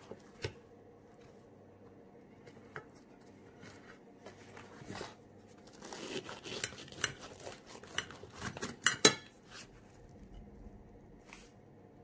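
Knife cutting through a crisp deep-fried Mughlai paratha on a ceramic plate: scattered crackling of the crust and knife clicks and scrapes against the plate, busiest in the second half, with a couple of sharp loud clicks about nine seconds in.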